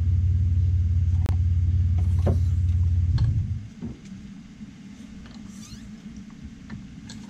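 Toyota car engine idling with a loud, deep exhaust drone from an exhaust that needs replacing; it shuts off about three seconds in. After that only a few faint metallic clicks and knocks are heard.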